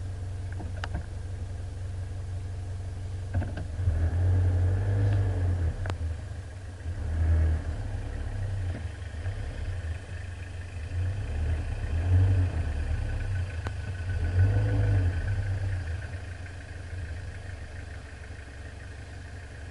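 Four-wheel-drive vehicle's engine running and revving in repeated surges as it works up a steep off-road hill. A few sharp knocks come in between.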